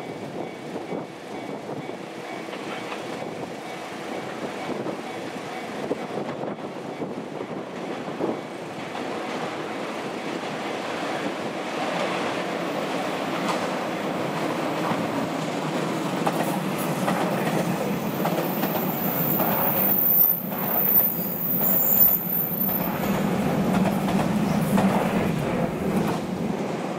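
JR Shikoku 8000 series electric limited express, eight cars, running past on a curve. The running noise grows louder as the train nears and is loudest about twenty seconds in, with wheels clacking over rail joints. A high-pitched wheel squeal on the curve runs through the middle of the pass.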